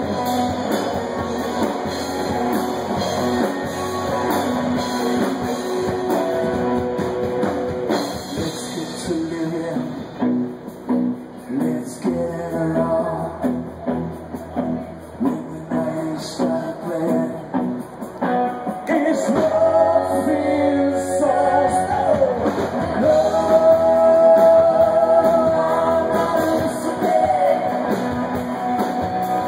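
Live rock band playing with electric guitars. About ten seconds in the playing turns choppy, stopping and starting, and from about nineteen seconds a singing voice comes in over the louder full band.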